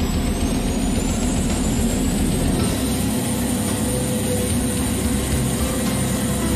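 RF-4E Phantom II's General Electric J79 jet engines running: a steady heavy rumble under a high whine that rises in pitch for the first couple of seconds, then holds steady.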